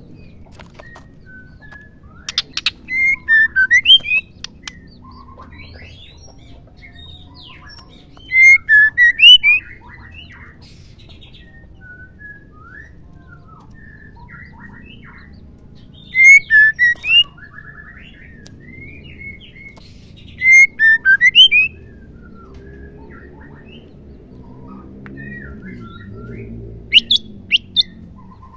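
Female white-rumped shama (murai batu) calling in five short bursts of quick, loud notes, each burst lasting about a second and spaced several seconds apart.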